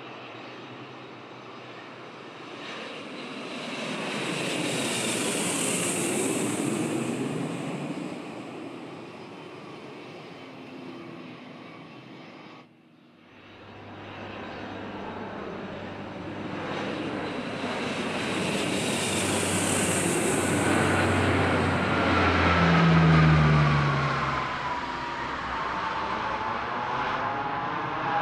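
Two landing aircraft passing on approach, split by a sudden drop about halfway through. First a four-engine turboprop swells and fades. Then an Airbus A320 jet airliner on final approach grows louder, with a falling engine whine as it goes past.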